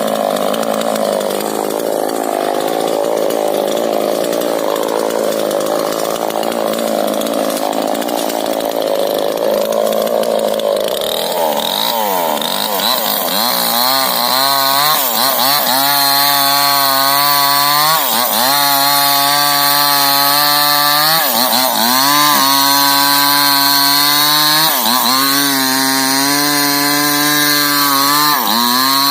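Two-stroke chainsaw cutting into rubber tree wood. For the first half it runs rough and noisy under load. About halfway in it settles into a high, even whine that sags briefly and picks back up roughly every three seconds as the chain bites into the wood.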